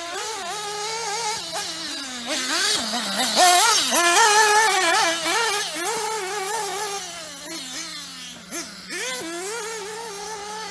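Nitro glow engine of a Kyosho MP10 TK2 1/8-scale RC buggy, revving up and down again and again, loudest a few seconds in, over a steady low hum.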